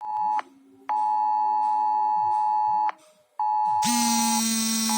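Mobile phone's emergency-alert attention tone for a Cell Broadcast test message: a steady two-pitch tone near 900 Hz in on-off beeps, a short one, a long one of about two seconds, then another. Just under a second before the end a louder, harsh buzzing low tone joins it.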